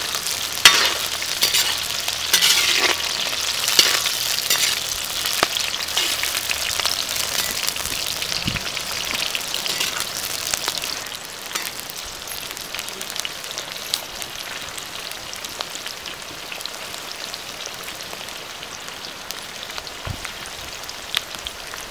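Onions and green chillies sizzling in hot oil in a black iron kadai, stirred with a metal perforated skimmer that clicks and scrapes against the pan. The sizzle turns quieter about eleven seconds in.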